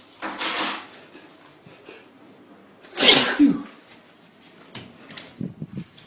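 A man sneezing: a shorter noisy burst near the start, then one loud, sudden sneeze about three seconds in that trails off in a falling voiced sound. Softer short noises follow near the end.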